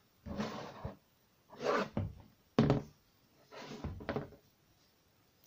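Hollow plastic coin bank being handled and turned over: four short rubbing and scraping noises, with a sharper knock about two and a half seconds in.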